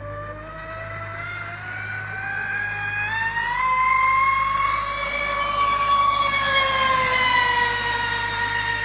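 Large RC racing catamaran at full speed, its twin electric motors giving a high, steady whine. The whine rises in pitch and loudness as the boat approaches, is loudest about midway, then drops a little in pitch and fades as it passes.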